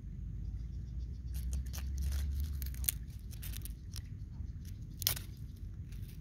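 A small wooden stick scraping and poking into dry, crumbly sandy soil around a hole, in a run of short scratchy clicks with one sharper click about five seconds in, over a low steady rumble.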